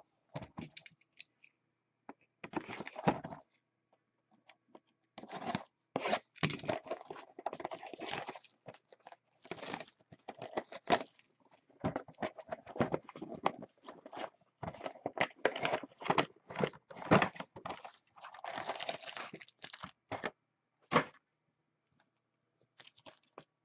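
Clear plastic wrap being torn off a box of hockey cards, then the box opened and the packs taken out. Irregular tearing, crinkling and rustling, with a pause about four seconds in and another near the end.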